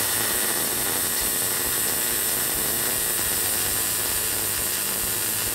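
MIG (MAG) welding arc running a continuous seam weld along a joint between steel plates, a steady, even arc noise with no breaks. The weld is being laid with wrong gun and travel angles, which gives an excessive heat zone.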